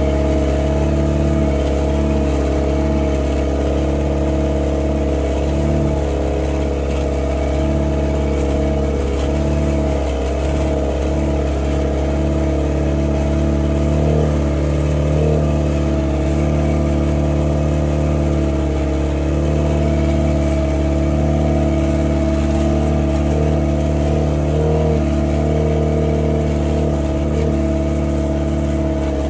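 Skidder's engine running steadily at an even speed.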